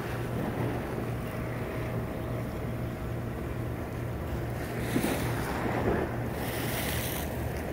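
Small waves washing against a rock seawall, with two louder splashing surges in the second half, over steady wind buffeting on the microphone.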